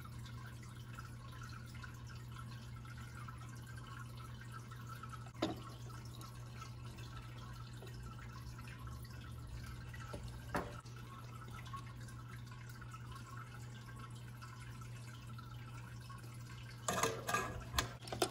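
Quiet bench work with a low steady hum, broken by two single light clicks a few seconds apart. Near the end comes a cluster of small knocks and clicks as a coiled-spring battery terminal is handled and pushed into the plastic battery compartment.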